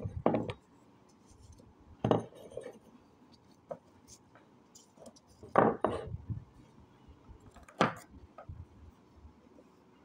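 Hard dried clay discs being set down one at a time on a paper-covered wooden table: four separate knocks about two seconds apart, with small clatters between them.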